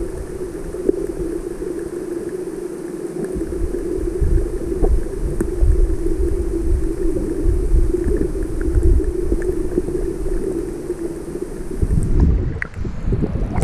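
Underwater sound picked up through an action camera's waterproof housing: a muffled, steady drone with a low hum. Near the end come splashes and sloshing as the camera nears the surface.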